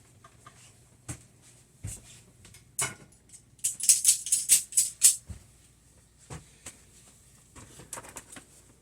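Metal hand tools being rummaged through and handled: scattered clicks and knocks, with a burst of jingling rattles about four seconds in.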